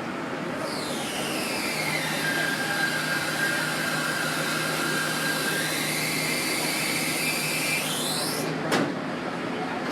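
Steady whooshing rush of a road vehicle passing by, with a sharp click near the end.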